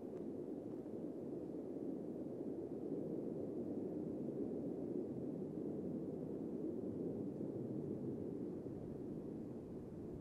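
Distant jet noise from an F/A-18 Super Hornet's twin jet engines as it climbs near-vertically and pulls over: a steady low rumble that swells a little, then eases slightly near the end.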